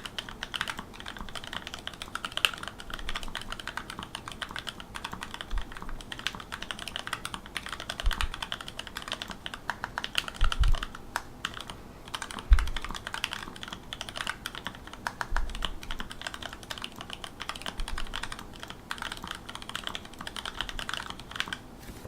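Fast, continuous typing on a mechanical keyboard with Bumblebee switches, a dense run of key clacks with a few heavier, deeper thumps mixed in, the loudest about twelve seconds in. The typing stops right at the end.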